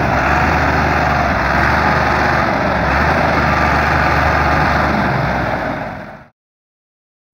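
Massey Ferguson tractor's diesel engine running steadily and hard under load as it pulls a heavy straw-loaded trolley stuck in the field. The sound fades out about six seconds in and gives way to silence.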